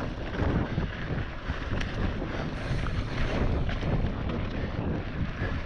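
Mountain bike descending a rough trail at speed: wind buffeting the microphone over a constant rattle of tyres, chain and frame, with many small knocks from the ground.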